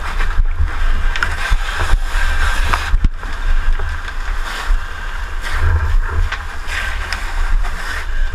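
Steady rumble and hiss from a body-worn action camera as a firefighter moves through a smoke-filled building, with scattered knocks and scrapes of gear against the camera and surroundings.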